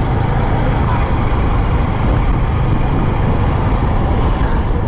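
Steady ride noise from a motorcycle on the move: the low running of the Yamaha R15 V3's single-cylinder engine mixed with wind rush on the helmet microphone, even and unbroken throughout.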